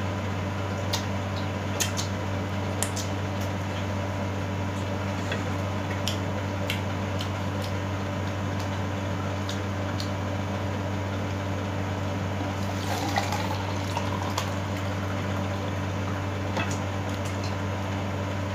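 Steady low hum with scattered small clicks from eating. About 13 seconds in, orange juice is poured from a glass carafe into a plastic cup, rising in pitch as the cup fills.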